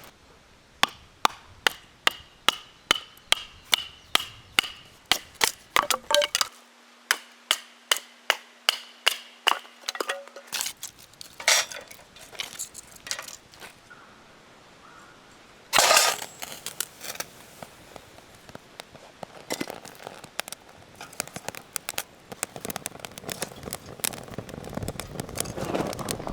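A fast run of sharp striking blows, about three a second with a faint ringing to them, stops about halfway through. A single loud burst follows, then scattered lighter clicks and crackles.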